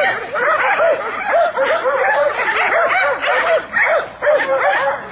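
Dogs barking and yipping rapidly and excitedly, several short calls a second, with more than one dog's voice overlapping at different pitches.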